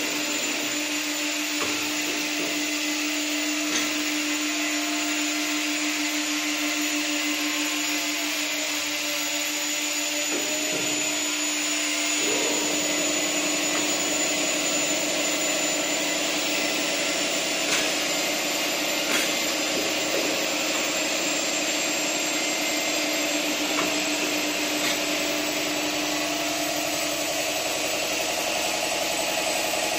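Hydraulic CNC tube-bending machine running: a steady whine from its hydraulic power unit with a constant hum and a high tone. About twelve seconds in, a rougher, busier running sound joins as the machine starts working a 25 mm square steel tube around its bending die. A few light clicks are heard.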